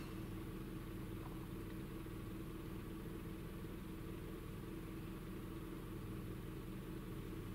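Toyota Yaris engine idling steadily, heard as a low, even hum from inside the cabin.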